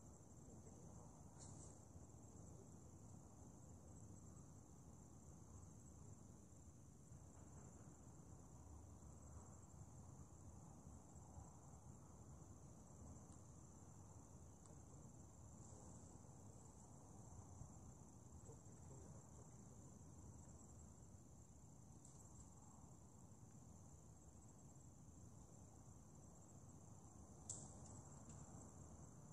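Near silence: a faint, steady high-pitched insect trill over a low background rumble, with a small click near the end.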